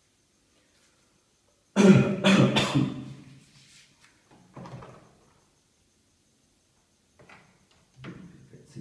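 Plastic top frame and control panel of a Sanyo top-loading washing machine being handled: a loud clatter of several quick knocks about two seconds in, a single knock a few seconds later, then more knocks and scraping near the end.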